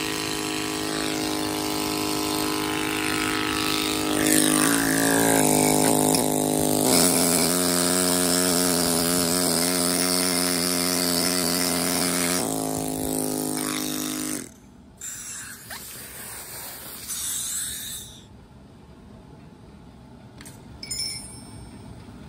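Pneumatic carving hammer (hand machine) driving a chisel into granite: a steady, pitched buzz that grows louder and shifts pitch a couple of times, then stops abruptly about two-thirds of the way through. Quieter handling noises and a brief click follow.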